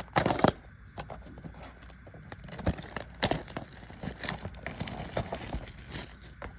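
A trading-card blaster box being torn open: a loud rip just after the start, then scattered crinkling and crackling of its plastic wrap and card packs being handled.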